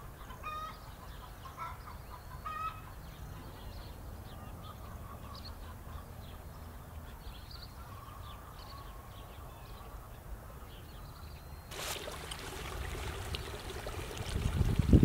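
Birds calling: a few short, repeated pitched calls in the first seconds, then scattered small chirps. About twelve seconds in, a steady rushing noise sets in and grows louder near the end.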